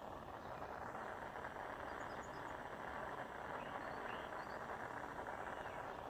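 Gas soldering torch flame burning with a steady hiss while it heats silver for soldering.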